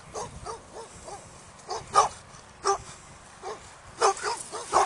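Dogs barking: a run of short separate barks at uneven spacing, some faint and some loud, the loudest about two seconds in and a quick cluster near the end.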